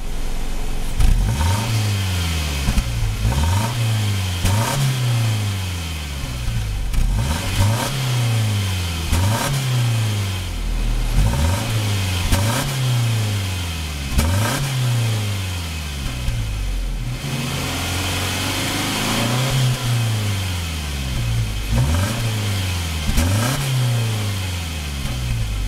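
2013 Subaru XV Crosstrek's 2.0-litre boxer four-cylinder engine revved repeatedly from idle, heard at the exhaust tailpipe. The exhaust note rises and falls about every second and a half, with a brief pause about two-thirds of the way through.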